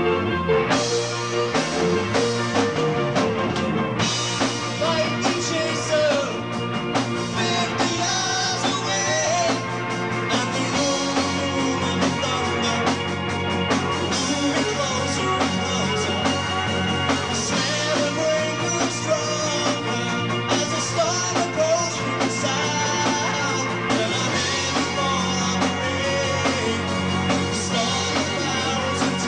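Progressive rock band playing live: drum kit, electric guitar and keyboards over a steady bass line, with a wavering melody line in the middle range.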